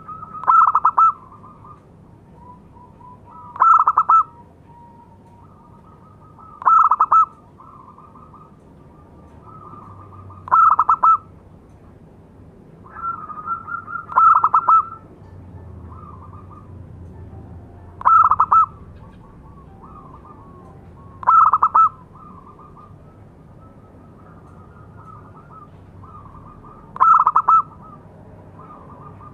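Zebra dove (perkutut) calling. Eight loud bursts of quick staccato coos come a few seconds apart, with softer coos between them.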